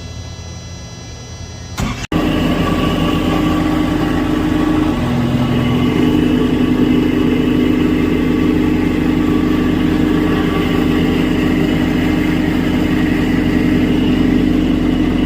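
A steady electrical hum, then about two seconds in a Thermo King reefer unit running with a loud, steady mechanical drone. The noise comes from the unit's electric fan motor, whose bearing is failing.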